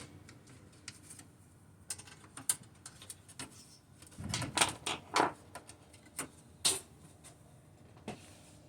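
Scattered clicks, taps and light clatters of a desktop computer tower being taken apart by hand: screws and small metal parts on the case. A cluster of louder knocks comes about four to five seconds in, and another near seven seconds.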